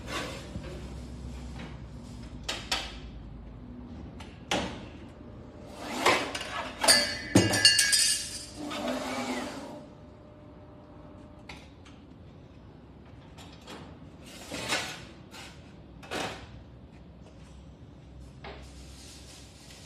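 Sheet metal and the steel parts of a magnetic sheet metal brake clanking and clinking as a sheet is handled and the bending beam is worked. A run of clattering with ringing metallic clinks starts about six seconds in and lasts a few seconds, with single knocks before and after.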